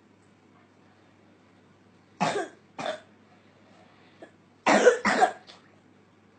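A young child coughing: two coughs about two seconds in, then a louder pair about five seconds in. It is the night-time cough that the parent puts down to postnasal drip.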